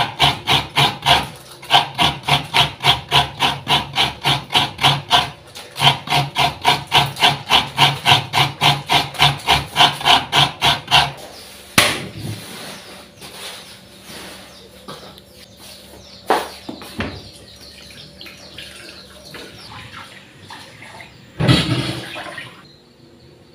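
Coconut being grated by hand into a steel bowl: even scraping strokes, about three or four a second, with two short pauses, stopping about eleven seconds in. After that comes quieter kitchen noise with a few knocks and a brief louder noise near the end.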